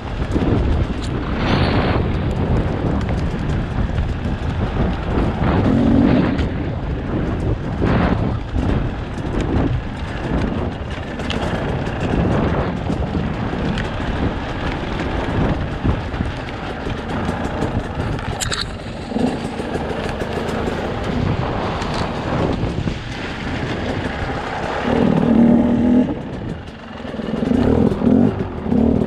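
Enduro motorcycle ridden along a rocky trail: the engine runs under changing throttle amid rough road noise and scattered knocks from the bike over stones. Near the end the engine note rises clearly as the rider opens the throttle.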